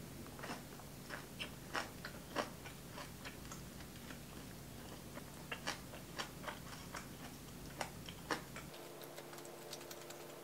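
Close-up eating sounds: someone chewing braised pork belly and shishito peppers, with irregular crisp clicks and crunches over a faint steady hum.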